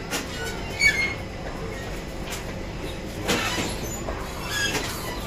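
Passenger train coaches rolling past on the next track: a steady rumble with wheels clunking over rail joints several times and a few brief high squeals.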